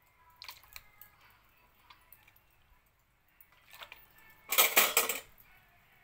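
Wet squelching and splashing of a raw octopus being handled in a bowl of water, with scattered soft clicks. A louder, dense burst of splashing comes about four and a half seconds in and lasts under a second.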